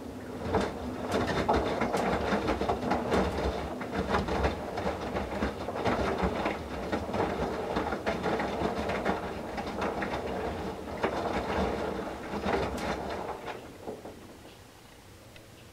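Whirlpool Duet WFW97HEDC direct-drive front-loading washer tumbling wet towels in the main wash: water sloshing and towels slapping down in the drum over a faint motor hum. It starts about half a second in and dies away near the end as the drum pauses.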